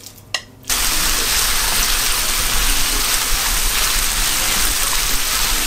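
Skinless chicken thigh pieces frying in a hot pan. A single knock as they go in, then a loud, steady sizzle that starts suddenly under a second in.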